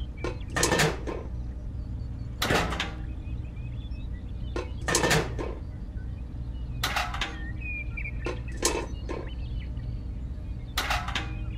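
A dozen or so short knocks and clatters of small plastic and metal model parts being set down and handled on a wooden model trailer, in irregular clusters, over a steady low hum.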